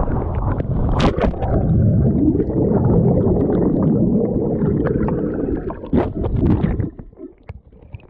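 A cliff jump into a lake heard from a body-worn camera. Air rushes past during the fall, and there is a sharp splash as he hits the water about a second in. Then comes muffled underwater rumbling and bubbling for several seconds, which fades as he surfaces near the end.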